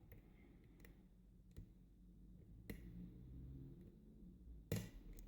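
Faint, scattered clicks of a lock pick working the pin stack of a five-pin euro cylinder during single-pin picking, a few over several seconds, the sharpest near the end.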